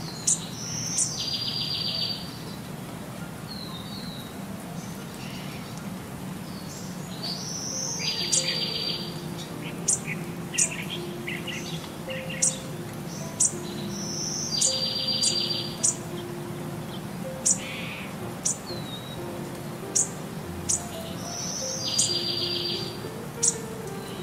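Looped background track of bird-like chirps and a short buzzy trill over soft held notes, the same phrase repeating about every seven seconds.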